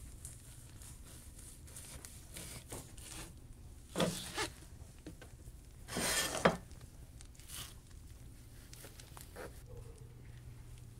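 Knife work on slabs of raw pork fat on a plastic cutting board: a few short scraping, tearing handling noises, the two loudest about four and six seconds in, over a low steady hum.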